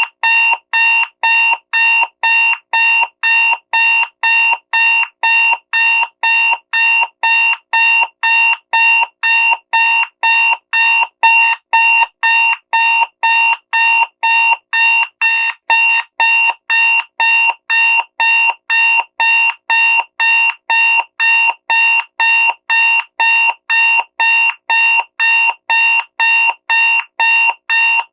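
Digital alarm clock beeping loudly: short, high electronic beeps repeating evenly at about two a second, without a break.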